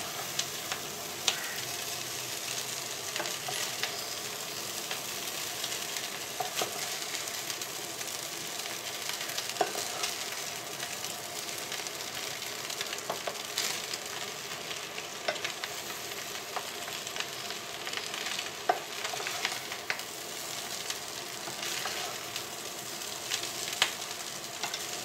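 Egg fried rice sizzling in hot oil in a pot, stirred slowly with a wooden spatula that scrapes and taps against the pot at irregular moments.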